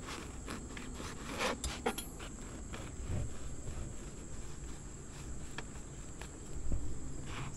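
A bread knife sawing through a crusty ciabatta loaf on a plastic cutting board, the crust crackling with scattered sharp clicks and knocks. A steady high insect drone runs underneath.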